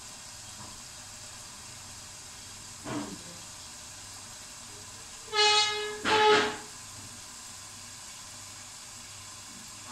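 A vehicle horn honks twice in quick succession about five seconds in, each toot a short tone held at a steady pitch. A fainter knock comes a couple of seconds before it.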